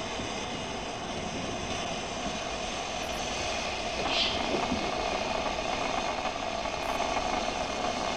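A 15-inch gauge miniature steam train running: a steady mechanical rumble with no clear beats, and a brief hiss about four seconds in.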